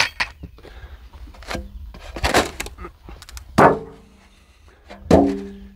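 Knocks and a scrape as chicken feed is scooped out of a container by hand, with two louder clanks about three and a half and five seconds in that each ring on briefly.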